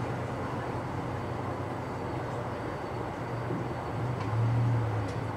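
A low steady mechanical rumble that swells about four seconds in, with a couple of faint clicks.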